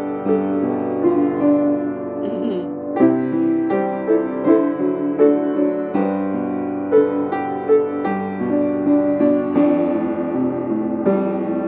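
Piano music: a melody of notes struck one after another about every half to one second over sustained chords.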